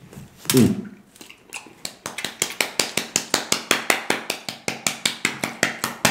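One person clapping their hands at an even pace, about four to five claps a second, starting about a second and a half in and stopping just before the end. A brief vocal sound comes about half a second in.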